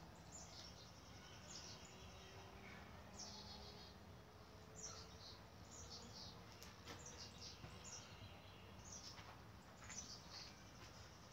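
Faint birdsong: short, high chirps that drop in pitch, repeated every second or so.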